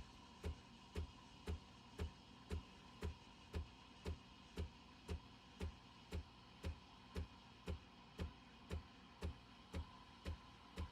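Quiet background music reduced to a steady beat: a soft low thump with a click, about two a second.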